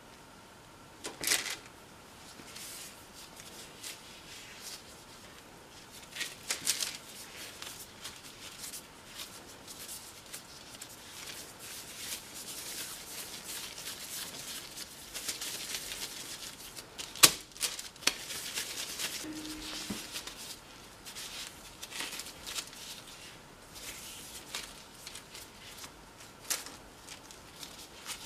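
Hands-on food-preparation handling noise: irregular rustling, rubbing and scraping throughout, with a few sharp knocks, the loudest about seventeen seconds in.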